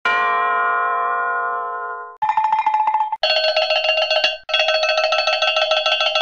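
Cartoon bell sound effects: a single bell strike rings out and fades over about two seconds. Then a bell is rung rapidly in three runs, each starting after a brief gap.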